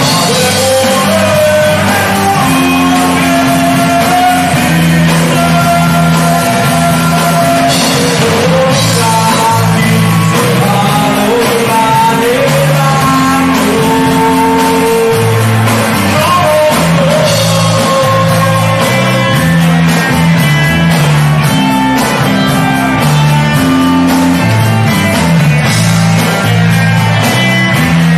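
Rock band playing live: electric bass stepping between notes under drums, guitars and a melody line.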